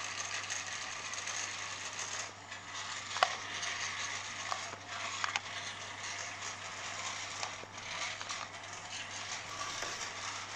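Small electric motor and plastic gears of a Fireman Sam IRC Wallaby 2 remote-control toy helicopter whirring steadily as it runs along the floor. A few faint clicks are heard in the first half.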